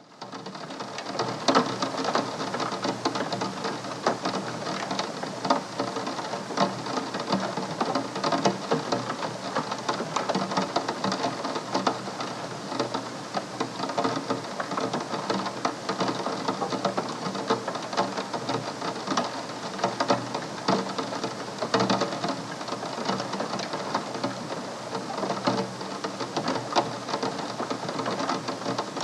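Rain falling on a window pane: a steady patter of countless drops ticking on the glass, fading in over the first second.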